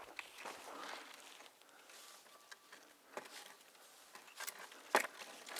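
Faint rustling and scraping from a forked stick and cable being worked up a tree trunk, with one sharp knock about five seconds in.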